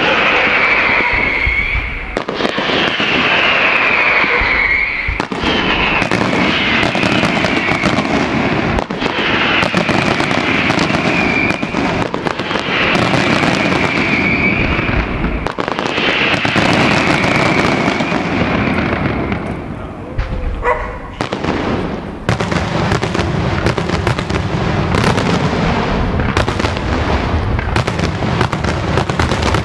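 Daytime aerial fireworks going off in a dense, continuous barrage of bangs and reports. Over the first two-thirds a high whistling keeps falling in pitch among the bangs. After a brief lull about twenty seconds in, a thick run of rapid bangs follows.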